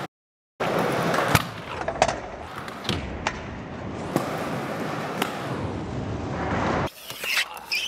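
Hard urethane wheels of a freestyle scooter rolling and grinding on concrete, with several sharp clacks as the deck and wheels strike the ledge and the ground. It starts after a brief silence and changes abruptly near the end.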